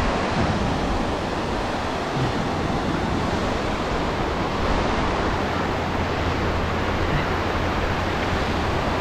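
Sea surf: small waves breaking and washing up over a flat, shallow sandy shore, a steady rushing hiss.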